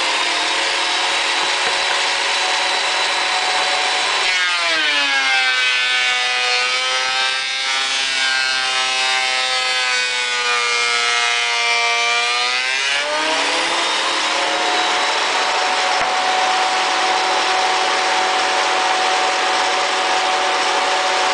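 Bernardo 330 mm thickness planer running with a steady pitched whine from its motor and cutterhead. From about four seconds in the pitch sags as a board is fed through and the cutterhead takes load, then climbs back up about thirteen seconds in when the cut ends.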